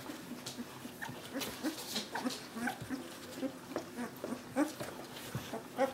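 Two-to-three-week-old poodle puppies making many small squeaks and grunts while nursing from their mother, several short calls a second, with scattered soft clicks.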